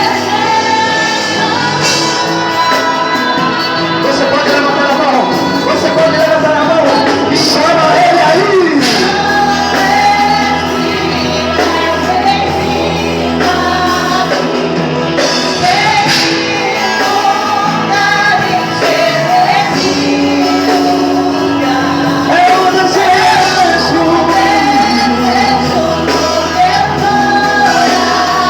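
Live worship music: singing voices over sustained keyboard and band accompaniment, with some shouted vocals.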